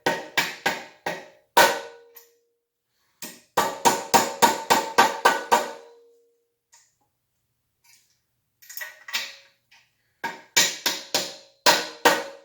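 Hammer blows on metal, in three quick runs of sharp strikes, each leaving a short pitched ring. This is work to straighten a crooked fitting in a frame tube with a socket.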